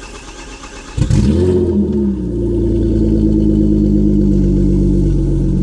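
Mazda car engine with an open, straight-piped exhaust starting: it catches about a second in with a brief rev flare, then settles into a loud, steady idle.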